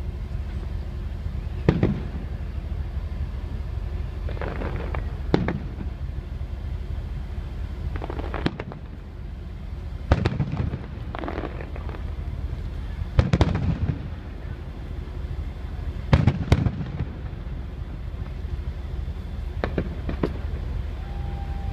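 Aerial firework shells bursting overhead, about half a dozen sharp bangs a few seconds apart, over a steady low background noise.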